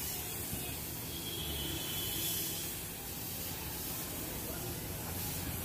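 Gravity-feed compressed-air spray gun hissing steadily as it sprays paint.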